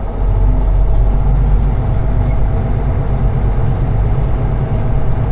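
Semi-truck's diesel engine running steadily with a low, even drone.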